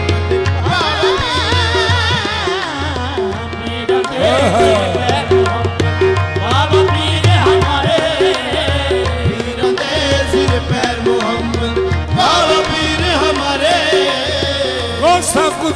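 Qawwali ensemble performing: tabla and harmonium keep a steady beat under singers' wavering melodic runs.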